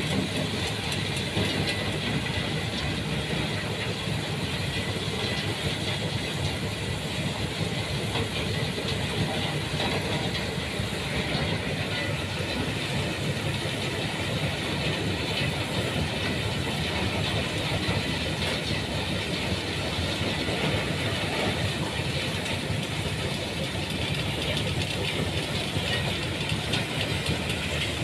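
Stone crusher plant running: a steady, dense rattling clatter of rock and machinery that does not let up.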